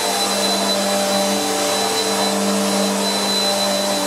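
Bissell PowerForce Helix upright vacuum cleaner running steadily: a steady motor hum with a high thin whine over the rush of air. The vacuum has just been reassembled and is being run to check that the brush roll turns and that it has good suction.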